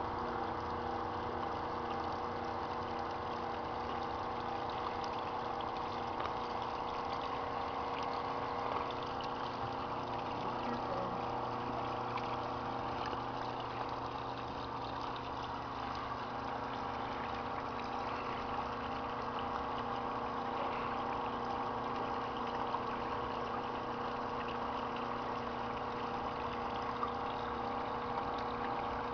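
Garden pond pump running with a steady hum, with water trickling and splashing under it.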